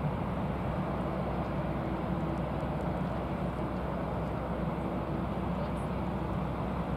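Airbus A380-800 with four Rolls-Royce Trent 900 turbofans climbing out after takeoff: a steady, low jet rumble.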